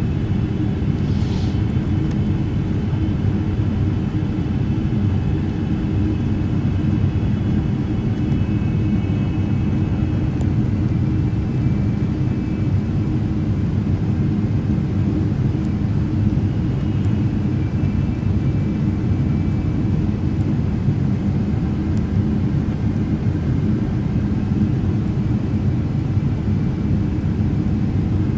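Cabin noise inside a Boeing 777-300ER on approach: a steady low rumble of GE90 engines and airflow, with faint steady whine tones above it. A brief hiss sounds about a second in.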